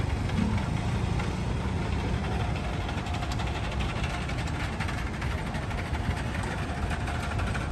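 Street traffic: a steady low rumble of car and truck engines.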